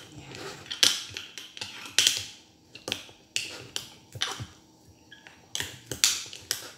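A utensil knocking and scraping against the inside of a glass jar as cooked rice and fish for burong isda are pressed down, packed tight to drive out air. The knocks come irregularly, roughly one or two a second.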